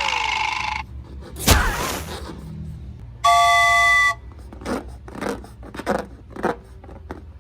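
Edited sound effects: a hiss, a quick whoosh, a bright chime held for about a second, then a string of short soft scraping noises coming about twice a second.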